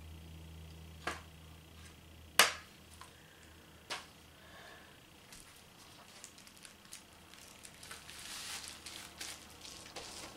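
Three sharp clicks and knocks, the middle one loudest, as a plastic makeup palette is handled, then crinkling and rustling of a silver bubble-wrap mailer handled by hand.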